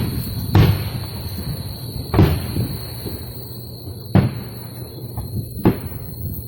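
About five sharp, distant bangs at irregular intervals of one and a half to two seconds, each trailing off in an echo, over a faint steady high whine.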